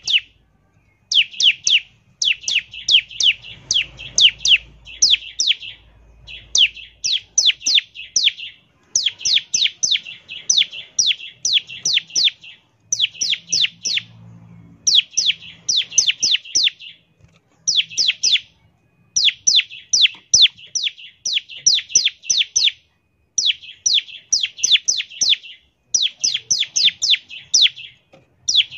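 Bar-winged prinia (ciblek) singing in full song: rapid volleys of sharp, high, down-slurred notes fired off in bursts of a second or two with short pauses between, the fast rattling 'ngebren' style.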